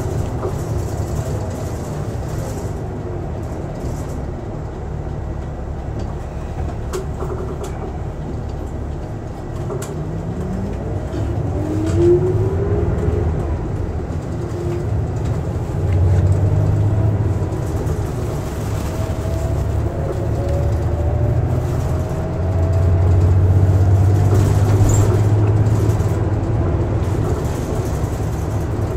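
Ofunato Line BRT bus running along its busway: a steady low engine drone, with rising whines as it picks up speed about a third of the way in and again past the two-thirds mark, and the drone swelling louder about halfway through and again near the end.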